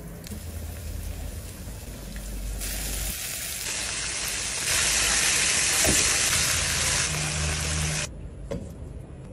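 Flour-coated chicken drumsticks frying in a pan of hot oil: a steady sizzle that grows louder partway through and cuts off suddenly near the end.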